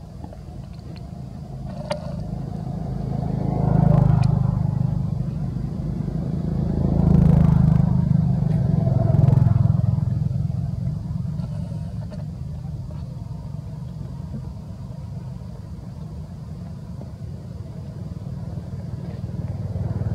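Engine noise from passing motor vehicles, a low hum that swells and fades three times, loudest about four, seven and nine seconds in.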